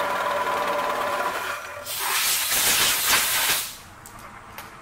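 Milling machine running steadily with a whine, fading out about one and a half seconds in. Then a loud hiss of compressed air from a blow gun for about two seconds, blasting metal chips off the part and rotary table, cutting off suddenly.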